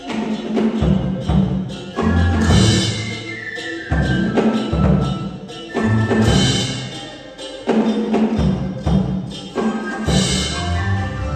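Vietnamese traditional ensemble music: a đàn kìm (two-string moon lute) plays the lead, backed by plucked lutes, zithers and percussion, in phrases with strong accented strokes about every two seconds.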